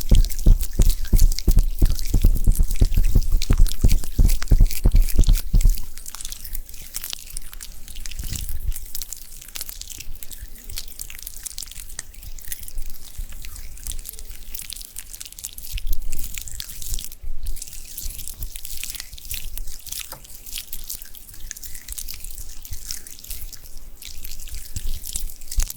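Close-miked ASMR skincare sounds: hands rapidly patting on the microphone for about the first six seconds, then quieter wet, sticky crackling of skincare product being worked by hand.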